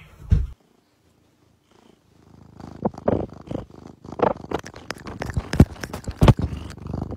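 A single heavy thump at the very start, then after a short pause a cat purring loudly right against the microphone in uneven pulses, from about two and a half seconds in.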